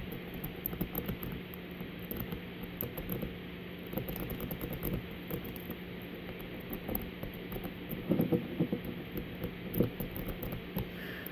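Small, irregular clicks and scrapes of a rake pick worked in and out across the pin stack of a Master Lock Magnum M187 padlock under a tension wrench, with a denser run of louder clicks about eight seconds in. A steady low hum sits underneath.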